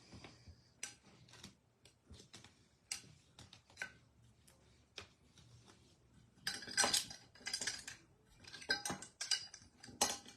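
Baseball cards being gathered and handled on a table: scattered clicks, taps and rustles, busier in the second half.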